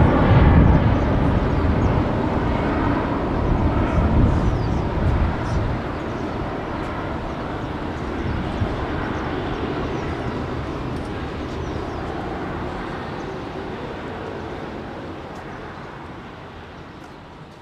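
Jet engine noise from a departing Airbus A330-300's two General Electric CF6-80E1 turbofans at climb power: a steady, noisy rumble that fades gradually as the airliner climbs away.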